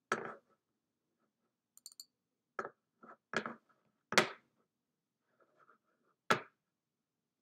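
About six irregularly spaced clicks from operating a computer, with near silence between them.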